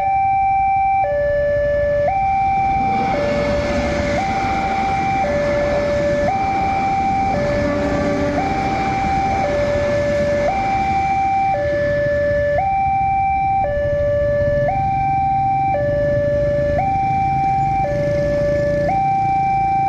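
Level-crossing warning alarm sounding an electronic two-tone hi-lo pattern, each tone about a second long. A passenger train passes over the crossing through the middle of it, adding a rushing rail noise.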